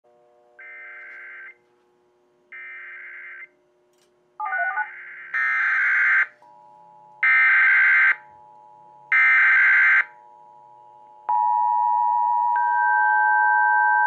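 Emergency Alert System encoders relaying a warning: the screeching digital SAME header data bursts, each about a second long and repeated, first a quieter set and then three louder bursts about two seconds apart, followed at about 11 seconds by the steady two-tone EAS attention signal starting and holding.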